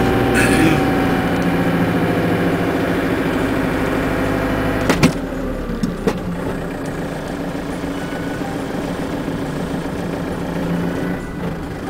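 Vehicle engine running steadily, heard from inside the cab. A whine slides lower over the first few seconds, and sharp knocks come about five seconds in and again a second later.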